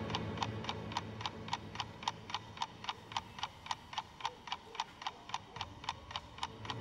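Pocket watch ticking steadily, about four ticks a second, over a low drone that fades away in the first second and swells back near the end.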